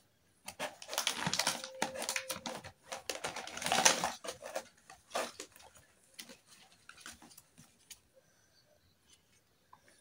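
Clear plastic packaging bag crinkling and rustling as it is handled and opened, in dense spells over the first half, then thinning to scattered crackles and clicks.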